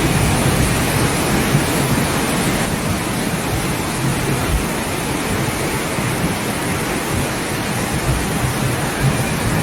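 Steady rushing of water, an even loud hiss with a low rumble underneath and no distinct events.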